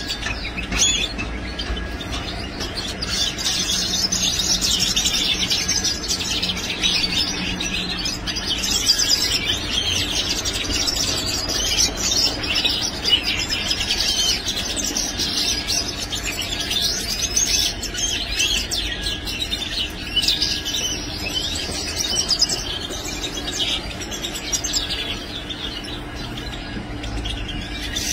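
European goldfinches twittering and chirping continuously in rapid, high-pitched runs.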